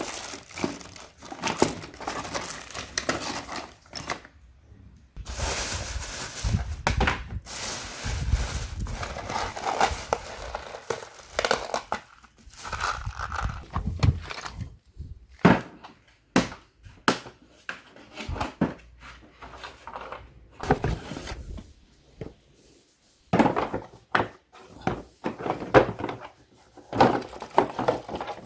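Hands rummaging through cluttered drawers and boxes: plastic wrappers and bags crinkling in irregular rustles, with scattered knocks as objects are moved about, and a few short pauses.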